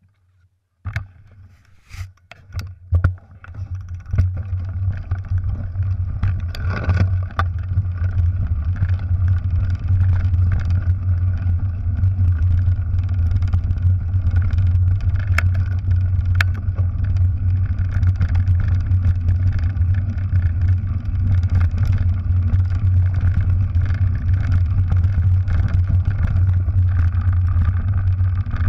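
Mountain bike rolling down a rough gravel track: a steady low rumble of wind buffeting the bike-mounted camera's microphone and tyre noise, with sharp knocks and rattles from the bike over the ground. A few loud knocks come as it sets off, and the rumble builds over the first four seconds.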